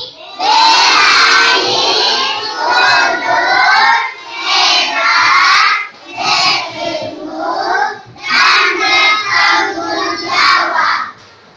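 A class of young children singing loudly together in unison, in phrases of a second or two with short breaks between. They stop shortly before the end.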